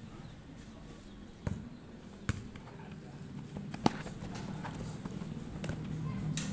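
A futsal ball kicked several times by players on artificial turf: a few sharp thuds, the loudest close by about four seconds in, with running footsteps on the turf.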